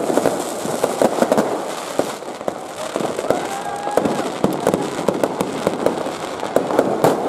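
Fireworks going off in quick succession: many sharp cracks and pops, irregularly spaced, over a constant crackling hiss.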